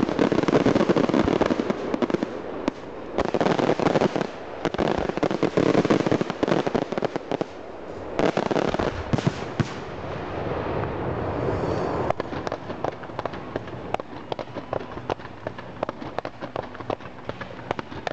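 Fireworks display: a dense barrage of booms and crackling for about the first ten seconds, then a brief rushing hiss, then a run of many sharp, separate crackling pops.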